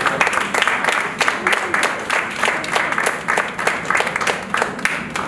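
Audience applauding, with many separate hand claps heard.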